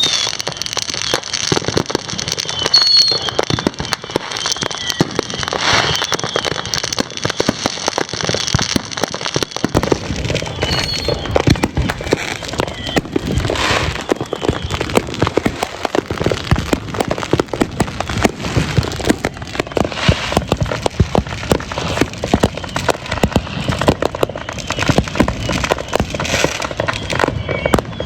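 Dense barrage of consumer fireworks: continuous crackling and popping of firecrackers and bursting mortar shells, growing heavier with deeper booms from about ten seconds in.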